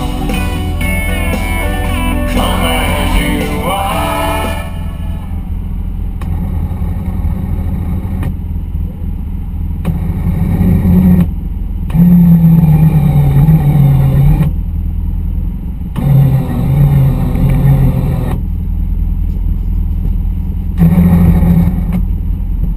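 Music with singing for about the first four and a half seconds, then an ATV engine idling, working harder in four louder spells of one to two and a half seconds while its winch line hauls a side-by-side stuck in snow.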